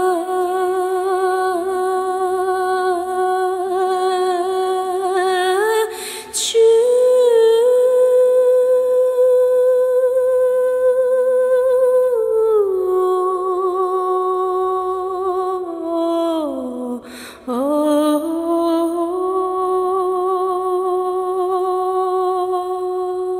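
Slow ambient background music: a single held tone like humming, wavering slightly. It steps up in pitch about six seconds in, falls back about halfway through, and dips down and back up again near the end.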